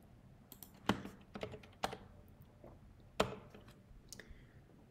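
Typing on a computer keyboard: scattered keystrokes in short bursts, with the loudest key strikes about a second in and a little after three seconds.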